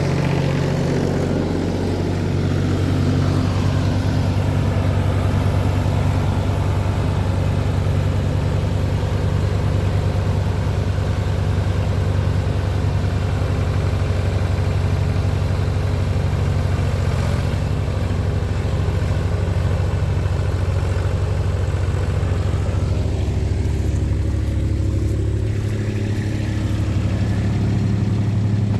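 An engine running steadily at an even speed, a loud, constant low hum.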